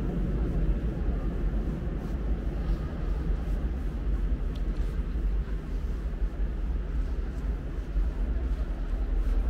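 Steady low rumble and hiss of the air in a vast underground salt-mine chamber, with no distinct events.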